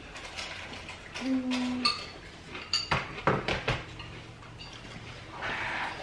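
Metal spoons clinking and scraping against soup bowls, with scattered knocks of dishes on a wooden dining table; a few sharp clinks ring briefly.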